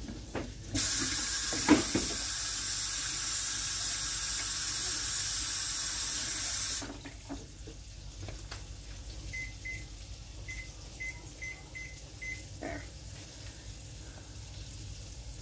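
A kitchen tap running full for about six seconds, then cut off sharply. A few seconds later comes a run of about eight short, high electronic beeps.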